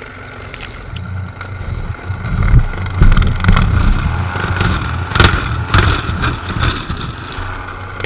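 Electric snow shovel running through wet, heavy snow: a steady motor whine over the churning of its rotor as it throws the snow, with scattered knocks. It grows louder about two seconds in as it bites deeper.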